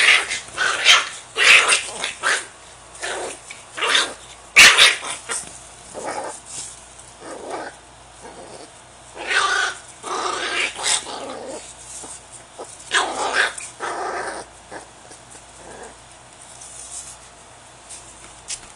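Five-week-old red-nose pit bull puppy growling and yapping in short irregular bursts while being handled in play. One sharp knock about four and a half seconds in.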